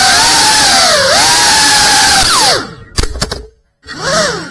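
GEPRC Cinelog 35 cinewhoop drone's brushless motors whining with small dips in pitch as the throttle moves. About two seconds in the whine winds down steeply, with a few sharp knocks as the drone comes down, then a moment of silence. A short rising-and-falling blip of the motors follows near the end.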